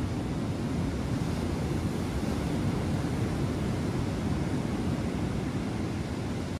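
Steady wash of ocean surf breaking on the beach, mixed with wind noise on the microphone.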